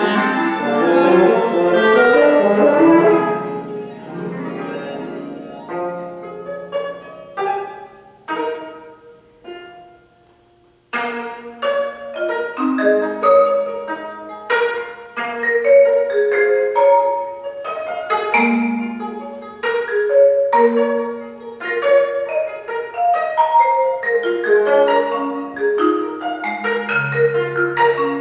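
Contemporary classical chamber music for 25-string gayageum, winds, strings and percussion. A full ensemble passage fades almost to nothing over about ten seconds, then a lively run of short ringing notes begins about eleven seconds in.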